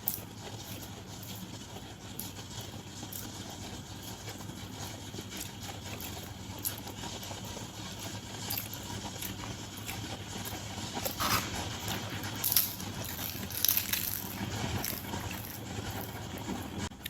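A person eating a meal by hand: chewing and crunching, with many short crisp crackles that come thicker and louder about eleven seconds in.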